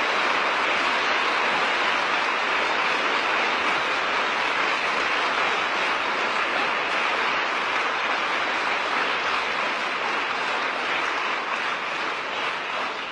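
A large audience applauding steadily, fading near the end.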